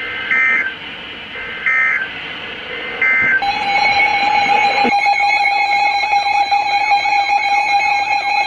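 Emergency Alert System SAME header: three short bursts of screeching digital data tones about 1.3 s apart. About three and a half seconds in, a loud steady alert tone begins and continues, with warbling, sweeping tones joining it about five seconds in. This sequence marks the start of a new emergency alert broadcast.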